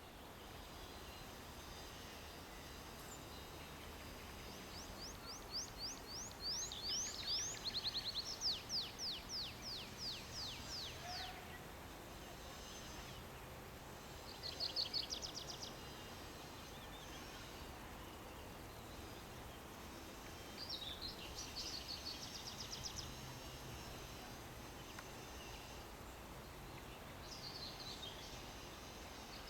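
A nightingale singing: four song phrases of fast, repeated high notes, the longest lasting about six seconds. Under it is a steady background hiss.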